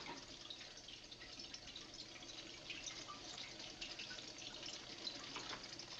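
Faint dripping and trickling water: a soft steady wash with small scattered drips and ticks.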